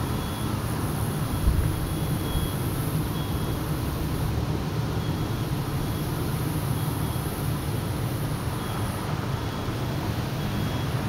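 Steady low outdoor rumble, with faint short high beeps now and then.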